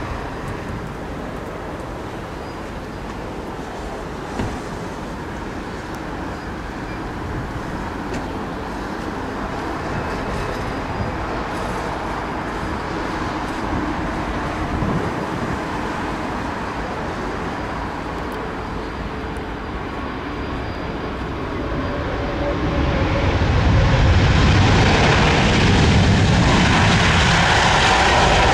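Airbus A340-600's four Rolls-Royce Trent 500 jet engines, heard as steady jet noise as the airliner comes in to land. The sound swells sharply louder and fuller about 23 seconds in as the aircraft reaches the runway and rolls along it.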